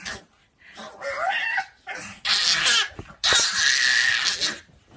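A puppy vocalizing: a short rising whine about a second in, then two louder, harsh, noisy cries, the second one drawn out for over a second.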